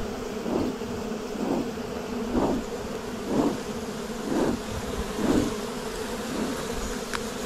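Honeybee swarm buzzing, a steady hum from the cluster close by. Over it a beekeeper's smoker is puffed about once a second, each puff a soft whoosh.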